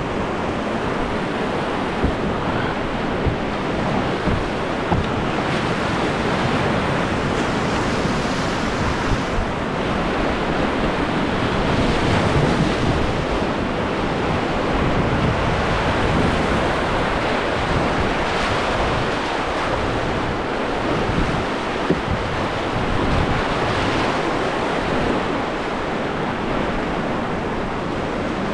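Rushing whitewater of a river rapid, a steady, dense wash of water noise with wind on the microphone, broken by a few short sharp knocks.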